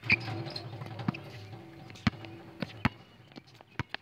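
A basketball hits the metal rim with a sudden clang, and the rim rings for about two seconds. Several sharp thuds follow as the ball bounces on the asphalt court.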